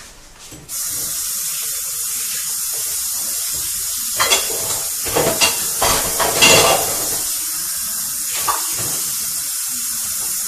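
Hot oil sizzling loudly in a frying pan around potato-and-tuna patties, a high hiss with a cluster of spattering crackles in the middle. It starts suddenly about a second in and cuts off suddenly at the end.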